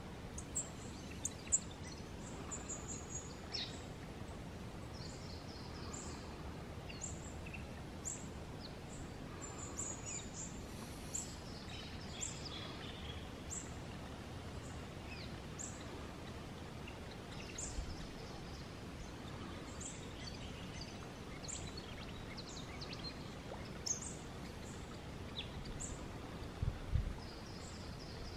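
Outdoor ambience with birds chirping: short high chirps scattered irregularly through, with a few lower falling calls, over a steady low background rumble. A few low thumps near the end.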